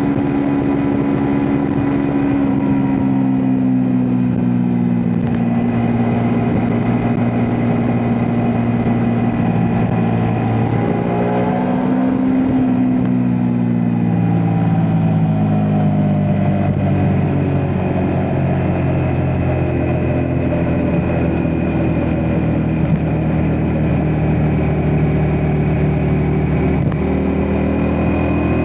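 Ducati Multistrada V4 S's 1158 cc V4 engine running under way, its note easing down, climbing briefly about halfway through, then settling lower, with wind and road noise underneath.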